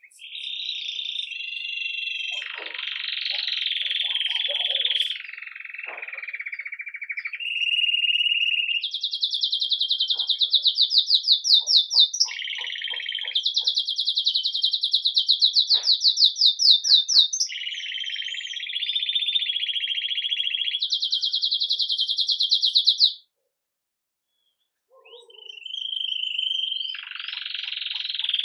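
Red mosaic agate Belgian canary singing in the campainha (bell) style: a long run of rapid trills, each held for a second or more before switching to another pitch. It stops for about two seconds near the end, then starts singing again.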